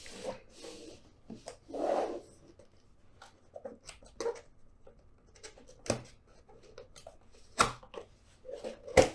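A cardboard retail box being opened and handled: scattered rustles, scrapes and light taps of packaging, with sharp knocks near six seconds and seven and a half seconds and a louder one near the end.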